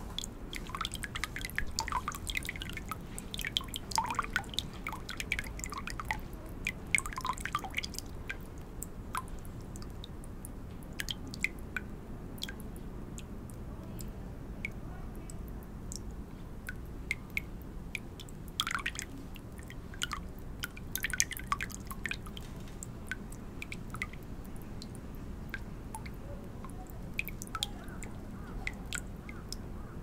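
Water trickling gently from a dragon-shaped spout into a shrine's chōzuya purification basin: irregular small drips and splashes, busier in the first few seconds and again about two-thirds of the way through, over a steady low background rumble.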